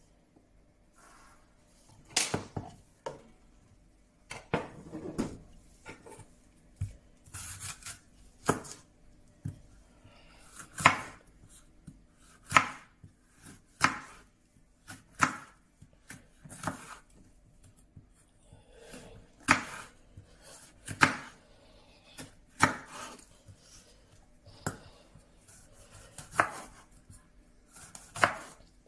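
Kitchen knife slicing a yellow bell pepper on a wooden cutting board. The blade knocks on the board in single sharp strokes, about one every second or so, beginning a couple of seconds in.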